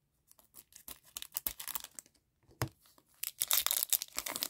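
Foil wrapper of an Upper Deck Overtime hockey card pack crinkling and tearing as it is opened: scattered crackles at first, then a dense burst of crinkling in the last second or so.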